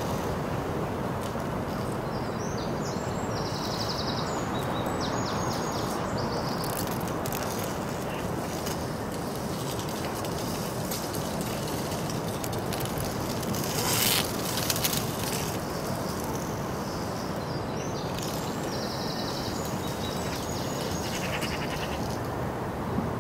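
Outdoor town ambience: a steady wash of background noise, with small birds chirping in two spells, a few seconds in and again near the end. About halfway through comes one brief, louder rushing noise.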